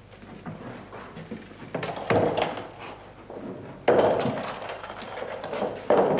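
Wooden barrels thudding down from a truck bed and rolling on the ground as they are unloaded: three heavy thuds about two seconds apart, each dying away over about a second.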